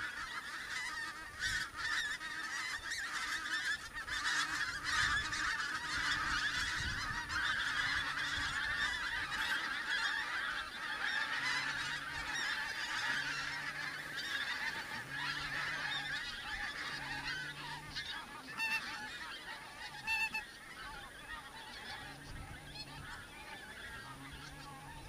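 A large flock of pink-footed geese calling in flight overhead: a dense chorus of many overlapping high honks that builds over the first few seconds and fades near the end as the flock moves off.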